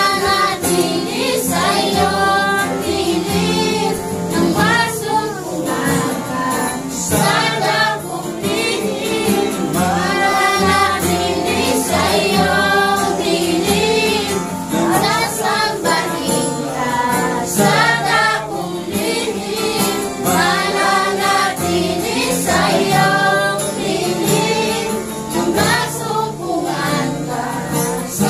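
A small congregation singing a Tagalog worship song together, men's and women's voices, over a steady accompaniment.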